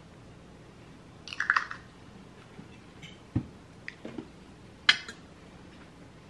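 Close-miked handling at a dinner plate: thick barbecue sauce squishing out of a glass bottle onto the plate about a second and a half in, then a dull thump and a few sharp clicks as the bottle is set down and a knife and fork are picked up.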